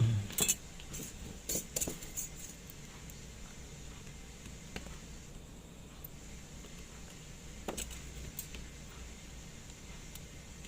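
Small metal clicks and clinks from watchmaker's tools and parts of a Seiko Kinetic 5M43 movement being handled during repair. There is a soft knock at the start, a quick run of clicks over the first two seconds or so, and a few more near the end.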